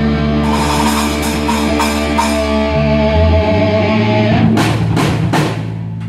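Live rock band playing at practice, with guitar, bass and drum kit. Held notes ring under three strong drum hits near the end, and the music then dies away as the song ends.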